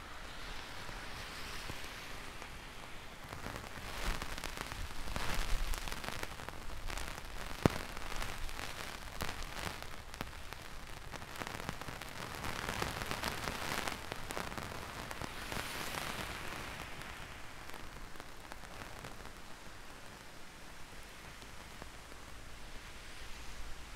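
Heavy rain falling, with a dense hiss of many drops hitting close by that swells and eases a few times. A single sharp tap sounds about a third of the way in.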